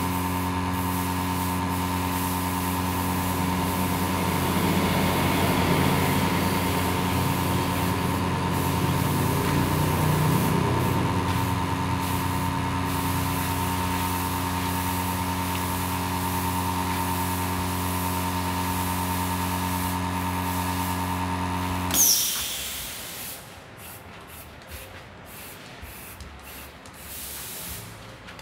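Aerosol spray paint hissing from cans of bronze-gold paint, heard first over a steady machine hum. The hum cuts off suddenly with a click about three-quarters of the way through, leaving the spray hissing in short bursts.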